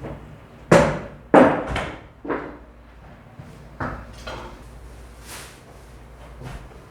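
A butcher's cleaver chopping mutton on a wooden block: about five sharp, heavy blows in the first four seconds, the first two loudest.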